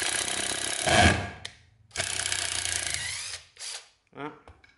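12 V cordless screwdriver driving a screw into a wooden block: its motor runs under load, loudest about a second in, stops briefly, then runs again for over a second. A short burst and a few brief blips follow near the end.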